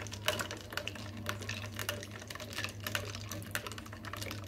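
Metal spoon stirring an iced drink in a glass tumbler: spoon and ice cubes clinking against the glass in quick, irregular clicks, over a steady low hum.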